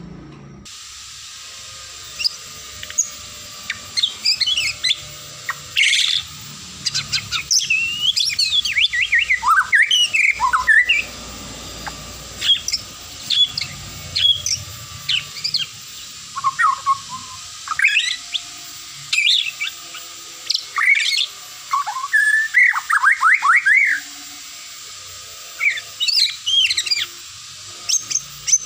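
White-rumped shama (murai batu) singing loud and varied: quick runs of clear whistled notes that slide up and down, delivered in bursts with short pauses between them.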